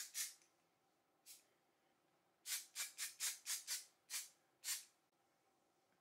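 Color Wow texturing spray being sprayed onto hair from an aerosol can in short hissing spritzes: one just after the start, another about a second in, then a quick run of about eight in a row.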